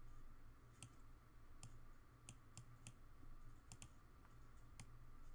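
Faint computer mouse clicks, about eight of them at irregular intervals, over a low steady hum.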